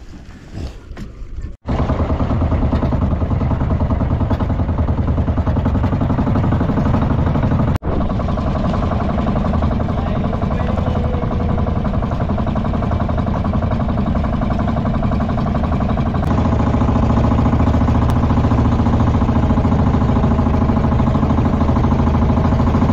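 The engine of a small motorized outrigger boat (bangka) running steadily while under way. It starts abruptly a second or two in and breaks off for an instant about eight seconds in.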